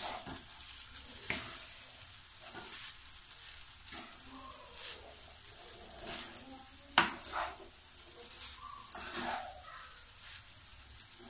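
Cooked rice with onion and tomato being stirred in a frying pan with a wooden spatula: a faint steady sizzle under scattered scrapes of the spatula against the pan.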